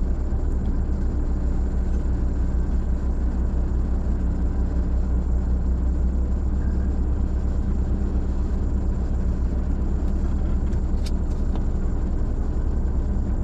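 Vehicle running steadily on the move, with a deep continuous engine and road rumble.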